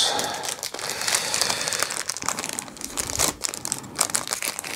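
Small clear plastic bags of screws and cable ties crinkling and crackling as they are handled.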